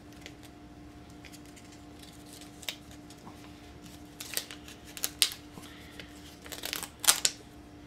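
A folded paper DVD insert crinkling and rustling as it is handled and unfolded by hand, in a few short crisp bursts, most of them in the second half, with a faint steady hum underneath.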